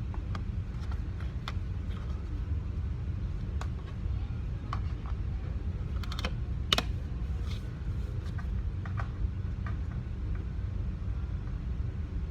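Scattered light clicks and taps at irregular intervals, a few close together about halfway through, over a steady low rumble.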